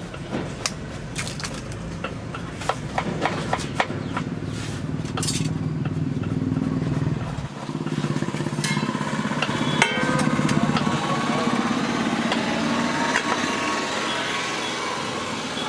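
Quick metallic clinks and taps, like utensils at a cooking stall, over a low motor drone. The drone changes and grows fuller about seven and a half seconds in, and the taps thin out.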